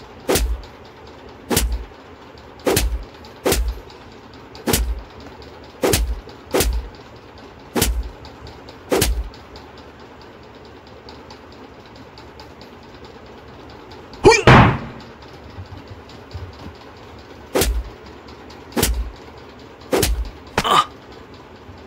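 A series of sharp, deep thumps about a second apart, stopping for about five seconds in the middle, with one louder, longer, pitched sound in the second half.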